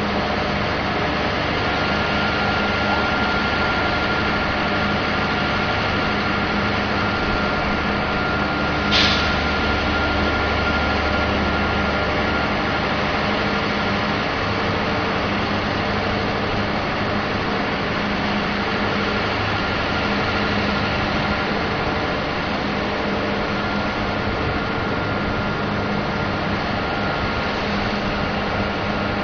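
Heavy rig engine running steadily under load while the drilling rig's mast is raised, with a steady hum and a faint high whine. A short hiss about nine seconds in.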